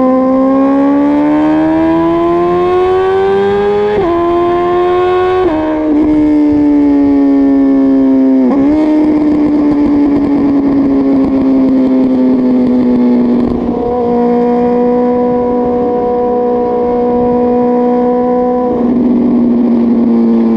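Suzuki GSX-R1000 K5's inline-four engine pulling hard with rising pitch, dropping sharply about four and five and a half seconds in as it shifts up through the gears. It then runs on at a steadier, slowly falling pitch.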